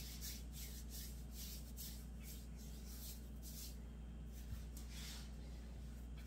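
Hands kneading sourdough English muffin dough on a floured countertop: soft, repeated rubbing and scuffing strokes, about two a second, over a low steady hum.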